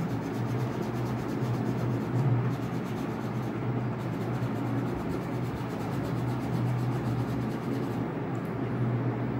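Wax crayon rubbing on paper in short colouring strokes, over a steady low hum.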